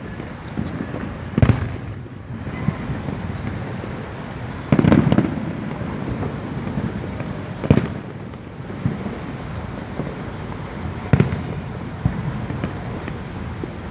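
Aerial fireworks bursting: four loud booms a few seconds apart, the second with a longer low rumble after it, and fainter crackles between them.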